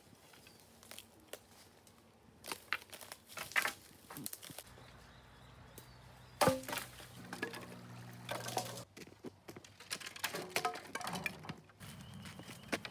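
Dry sticks and twigs cracking and rustling as branches are pulled out of a tangled pile of dead brush, in a run of irregular sharp snaps with the loudest crack about halfway through.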